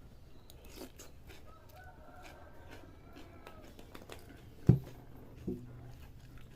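Small clicks of a spoon against a bowl as bakso is eaten, with a rooster crowing faintly in the background about two seconds in. A sharp knock a little after the middle is the loudest sound, followed by a smaller one.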